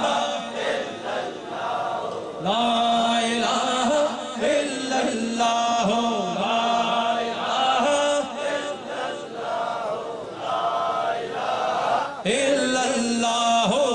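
Men chanting an Urdu naat in drawn-out sung phrases, each held on a steady note, with short breaks about two seconds in and near the end.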